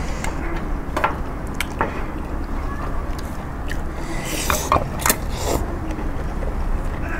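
Light clicks and knocks of tableware during a meal, scattered at first, then a short rustling clatter about four to five seconds in, over a steady low hum.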